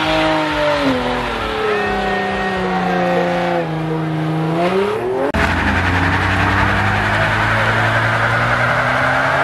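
Car engine held at high revs during a burnout, its pitch sagging slowly and then climbing again, with tyre noise. About five seconds in the sound changes abruptly to a steadier engine drone under a rough hiss of spinning tyres.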